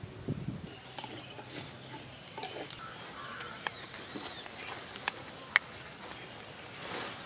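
A spatula scraping and tapping against a clay bowl as spice paste is scraped out, giving scattered sharp clicks, the loudest about five and a half seconds in. Under it runs a faint steady hiss from the pot cooking over the fire.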